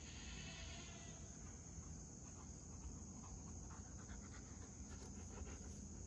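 Faint, steady high-pitched insect chorus of crickets trilling, with a brief faint call in the first second.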